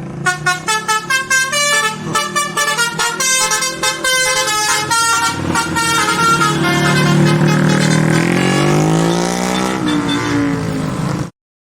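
Bus 'telolet' multi-tone horn playing a fast tune of short, stepped notes, then a long tone that rises in pitch. It cuts off suddenly near the end.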